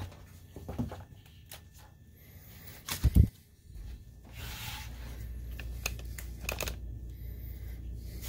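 Handling noise: scattered light clicks and knocks on the open projector's plastic chassis, with one loud thump about three seconds in, followed by a steady low hum.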